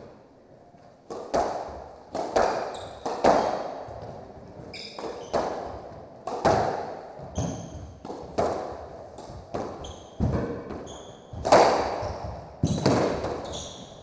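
Squash rally: the ball struck by rackets and hitting the court walls, often in quick pairs about once a second from about a second in, each hit echoing around the court. Short high shoe squeaks on the hardwood floor come between the shots.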